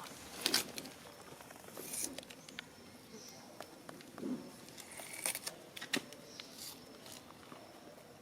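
Scattered rustling, crunching and light taps, like small animals moving over dry ground and leaves, with a faint short animal call about four seconds in.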